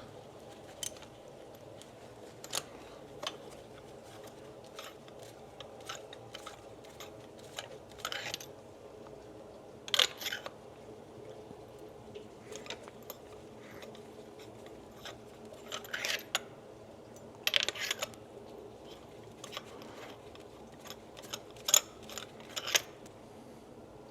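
Hand tools and metal engine parts clicking and clinking at irregular intervals, over a faint steady hum.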